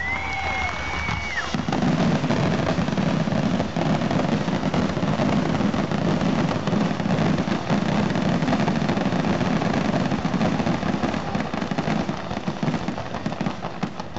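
Fireworks display: a short high whistle, then from about two seconds in a dense, continuous barrage of rapid shell bursts and crackling.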